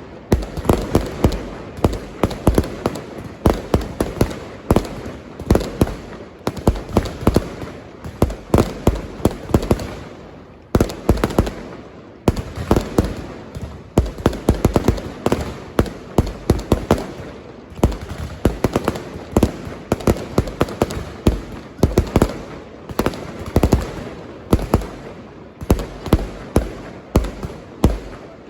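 Firecrackers and parade pyrotechnics going off in a rapid, continuous barrage of sharp bangs and crackling, several a second, with a short lull about ten seconds in.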